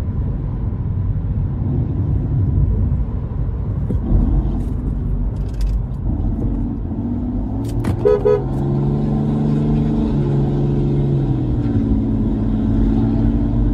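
Steady road and engine rumble heard from inside a car. About eight seconds in a car horn gives a short double toot, and a steady pitched drone follows until shortly before the end.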